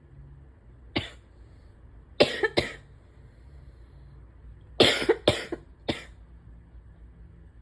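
A person coughing in short, sharp bursts: one, then a quick pair, then a run of three. The coughing comes with an asthma attack that the uploader puts down to allergies.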